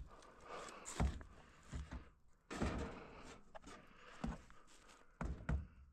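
A handful of irregular soft knocks and thuds with rustling between them, as of someone moving about and handling things while at work.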